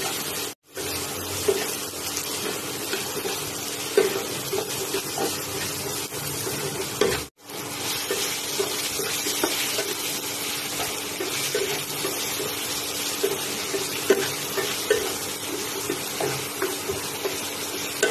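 Diced potatoes and onions sizzling in hot mustard oil in a non-stick kadhai while a spatula stirs them, scraping and tapping against the pan over and over. The sound cuts out for an instant twice.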